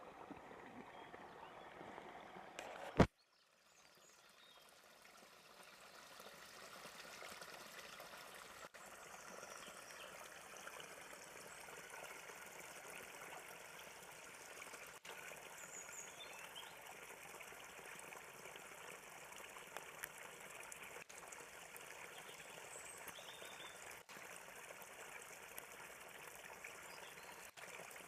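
Sewage works discharge spilling from a flap-valve outfall pipe and splashing into a stream, a steady trickle and splash. A sharp click comes about three seconds in, then the water sound builds over a few seconds.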